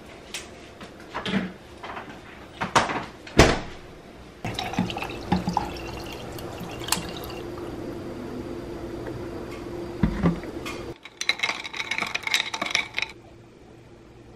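Iced coffee being made: a few knocks and clunks of bottles and the fridge, then liquid pouring steadily into a glass over ice. About eleven seconds in comes a quick rattle of clinks, like ice against glass.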